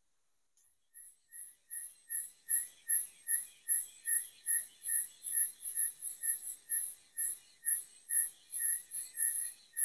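Insect calling in the forest: short, high-pitched pulses repeated at an even rhythm of about two to three a second, starting about a second in and growing louder before holding steady.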